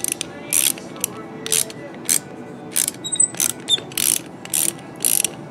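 Half-inch ratcheting wrench cranking an adjuster bolt down: a short run of pawl clicks on each back stroke, about two strokes a second.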